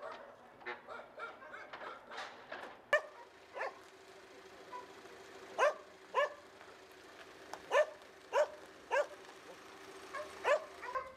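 A dog barking repeatedly in short barks, often two close together, with smaller yips in the first few seconds. A faint steady hum runs underneath from about three seconds in until just before the end.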